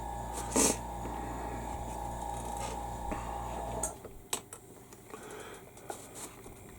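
A small electric motor runs with a steady hum and a pulsing low throb, then cuts off about four seconds in. Faint scattered clicks of handling follow.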